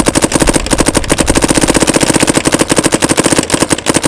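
Dye M3s electronic paintball marker firing rapid strings on compressed air, over ten shots a second. The rate stutters briefly in places, which the shooter puts down to paint not feeding properly.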